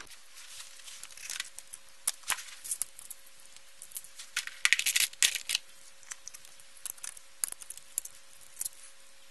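Hands handling the parts of an opened LCD monitor: irregular light clicks and plastic rustles, busiest about halfway through, as the power board is covered again. A faint steady hum runs underneath.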